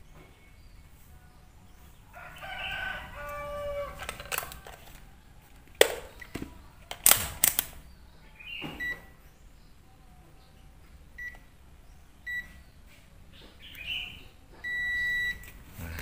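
Digital multimeter on its continuity buzzer range giving short beeps, then a longer beep near the end, as the probes touch transformer winding ends that are connected. Sharp clicks of the probes are heard, and a rooster crows in the background about two seconds in.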